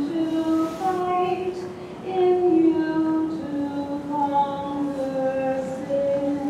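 Entrance hymn sung by a single high voice: a slow melody of long held notes moving step by step.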